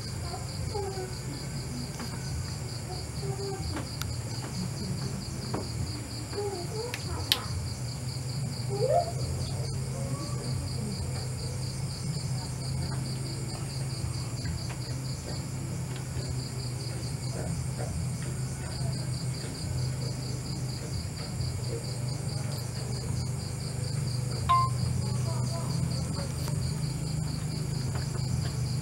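Night insect chorus: crickets trilling steadily and without a break, over a low steady hum, with a couple of sharp clicks.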